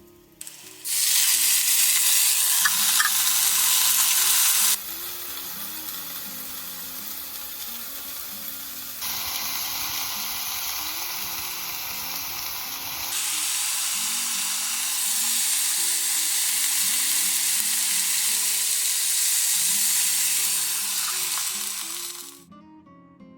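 Food sizzling in a hot pan, a loud, steady hiss that jumps in level at several edits and stops shortly before the end, over soft background music.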